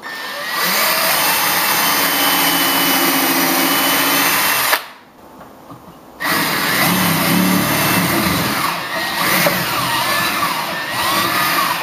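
Cordless drill running as it bores into wood, in two runs about a second and a half apart: first a thin bit drilling a pilot hole for a screw, then a bigger bit widening the hole to countersink the screw head.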